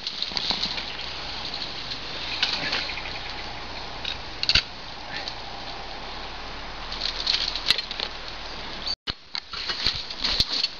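Rustling and scraping of someone climbing a tree, with scattered cracks and clicks of bark and twigs under hands and shoes. The sound drops out briefly about nine seconds in.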